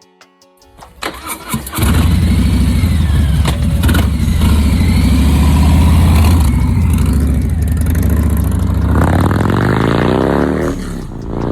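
Harley-Davidson Low Rider ST V-twin starting: the starter cranks briefly about a second in, then the engine catches and runs loud, with a rising rev near the end.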